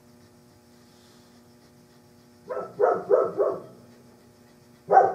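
A dog barking: four quick barks about two and a half seconds in, then a single bark near the end.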